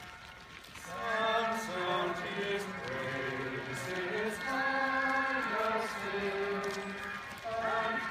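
Voices singing a slow chant in unison, with long held notes in a single melody line. The singing comes in about a second in.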